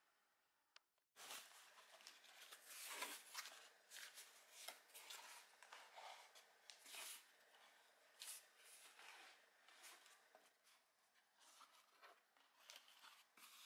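Cardboard box being opened and its contents handled: faint, irregular rustling and scraping of cardboard, starting about a second in.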